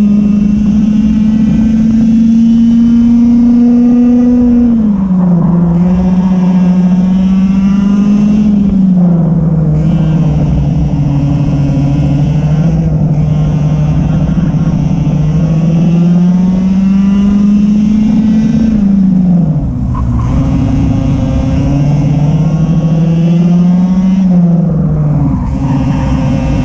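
Racing kart engine running hard at high revs, its pitch climbing slowly on the straights and falling sharply four times as the kart slows for corners, with rushing wind and tyre noise beneath it.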